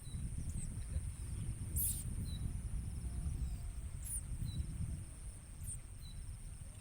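Short high bird chirps and sharp calls every second or two from bar-winged prinias at their nest, over a steady low rumbling noise and a thin, steady high whine.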